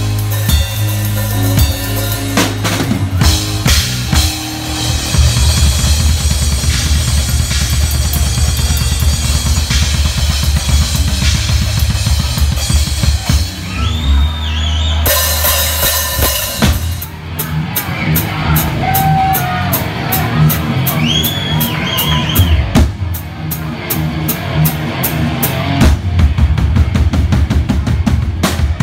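Drum kit played live in a rock band, heard close to the kit: a steady bass drum, snare and cymbals drive the beat over the rest of the band's music.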